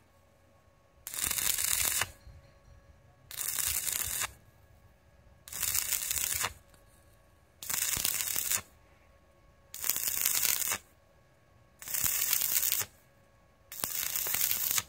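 Stick welding rod arcing on thick steel in short, repeated bursts: the arc crackles and hisses for about a second, breaks off for about a second, and is struck again, seven times in a row. The weld is built up in short stitches, the arc broken between each while the spot still glows red-hot.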